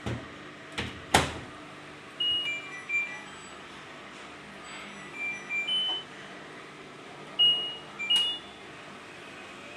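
Washing machine control panels beeping: three groups of short electronic beeps at two or three different pitches, after a couple of sharp clicks about a second in. The beeps sound while the machines run a spin with the door left open and unlocked, a state meant to raise a door-lock error code.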